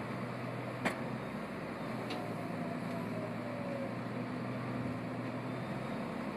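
Tractor engine running steadily under a constant mechanical din, with one sharp click about a second in.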